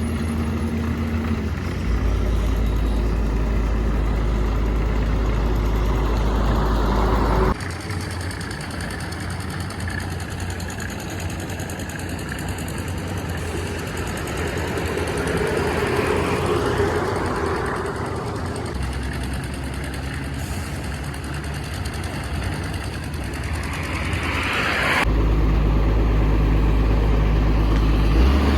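Komatsu PC210 excavator's diesel engine running, swelling up and easing back off once around the middle, with several abrupt jumps in the sound.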